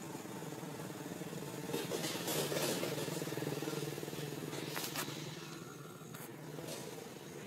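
A passing motor vehicle's engine hum, growing louder to a peak two or three seconds in and then fading away, with a few sharp clicks over it.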